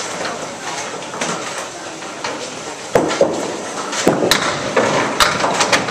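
Candlepin bowling: a series of sharp knocks and clacks of balls and pins over the steady background noise of the alley, starting about three seconds in.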